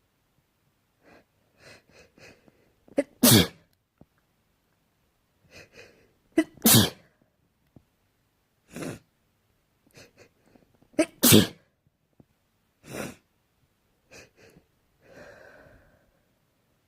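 A person sneezing repeatedly, five sneezes in all, three of them loud. Each comes after a few short catching breaths.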